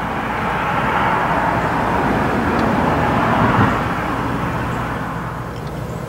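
A passing vehicle: a steady rush of noise that swells over the first few seconds and then fades away, over a low hum.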